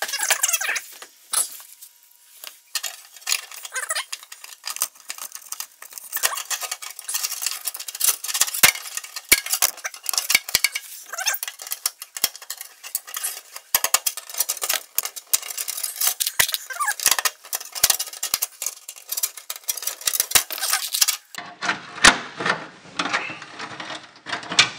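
Handling noise of small metal parts worked by hand against the truck box's sheet metal: dense light clicking, rattling and scraping, thinning to a few sharper clicks near the end.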